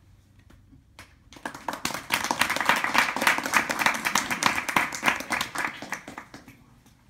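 Audience applauding: the clapping starts about a second in, swells quickly, holds for a few seconds and dies away near the end.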